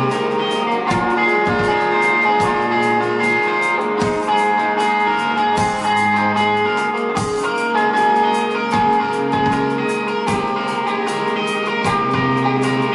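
Live rock band playing a steady passage: electric guitars, electric bass and a Pearl drum kit, with the drums hitting at a regular beat.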